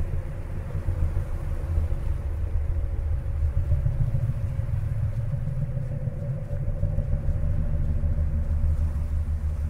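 Low, uneven rumble of wind buffeting a handheld camera's microphone outdoors, with a faint steady hum underneath.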